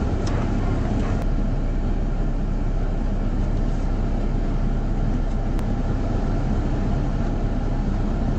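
A motor vehicle running, a steady, even low rumble with no change in pace.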